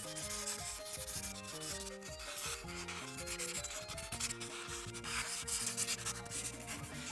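Ohuhu marker tip rubbing back and forth on paper, a steady dry scratching as a large background area is colored in. Quiet background music runs underneath.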